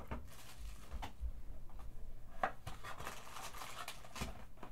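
Small cardboard Tier One card boxes handled on a table: light scuffs and a few short knocks as one box is put aside and the next is lifted from the stack.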